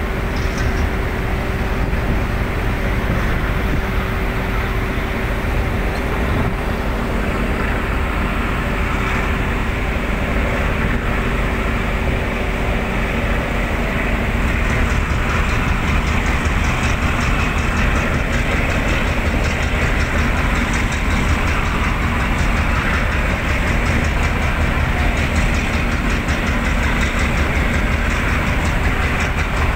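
Ship's engine running steadily: a constant low rumble and hum under a broad wash of noise.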